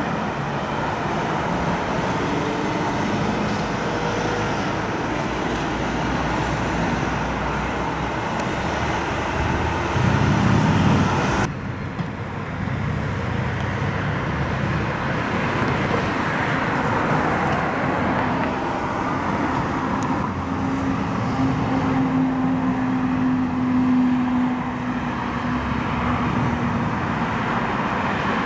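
Boeing 787-9's jet engines running, a steady rushing noise that changes abruptly about a third of the way through, with a low steady hum joining in later.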